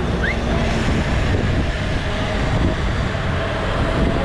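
Steady noise of a moving vehicle, heaviest in the low end, with a brief rising chirp near the start.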